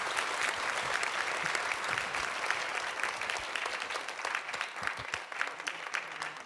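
Audience applauding steadily, a dense patter of many hands clapping that slowly dies down near the end.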